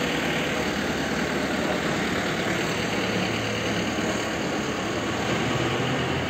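Freight train of covered hopper wagons rolling past on the rails, a steady rumble with a low hum underneath that grows a little near the end.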